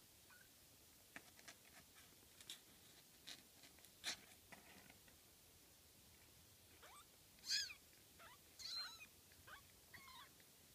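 Very young kittens mewing: several thin, high-pitched mews in the second half, the loudest about seven and a half seconds in. Before them, scattered faint clicks and scratches as the kittens crawl over each other on the blanket.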